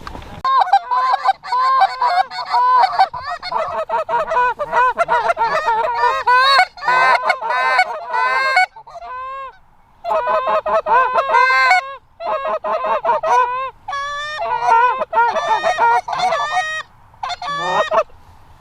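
Canada goose honks and clucks, many calls in quick overlapping succession, with short breaks about nine and twelve seconds in.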